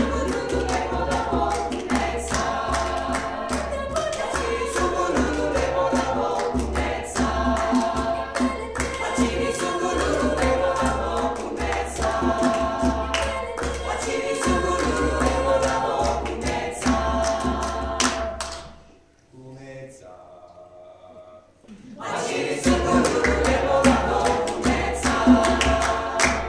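Mixed a cappella choir singing a Southern African song in harmony over a steady beat of hand claps and a djembe. About 19 seconds in, the sound drops to a quiet, sparse passage for a few seconds before the full choir comes back in.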